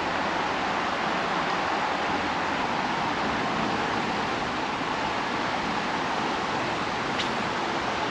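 Creek water rushing steadily past, with one faint short tick about seven seconds in.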